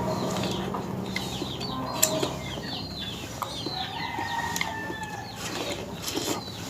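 Chickens clucking and small birds chirping in the background, with a couple of sharp clicks.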